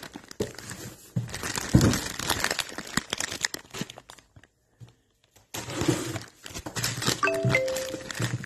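Low-density polyethylene plastic bag crinkling and rustling as it is handled, in two spells with a short pause between.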